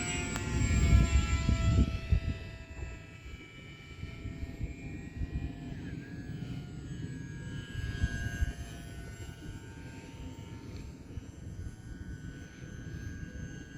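Electric motor and propeller of a HobbyZone AeroScout RC airplane whining in flight. Its pitch falls over the first few seconds as it passes, then comes back higher about halfway through. Wind buffets the microphone, strongest in the first two seconds.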